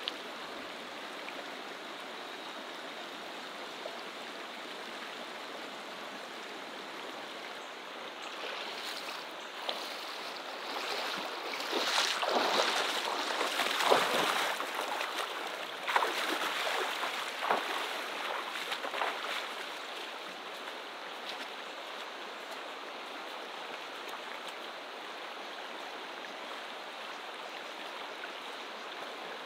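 Shallow, clear river running over cobbles and stones, heard close to the water as a steady, even rush. A louder, uneven stretch of surges comes about a third of the way in, lasts roughly ten seconds, then dies back down.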